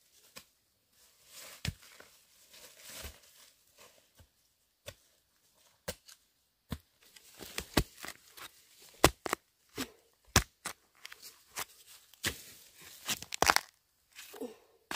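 Irregular sharp snaps and tearing sounds, sparse at first and coming thicker and louder over the second half.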